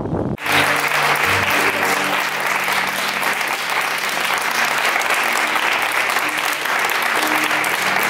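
A roomful of people applauding, with steady clapping and background music with a few held low notes underneath.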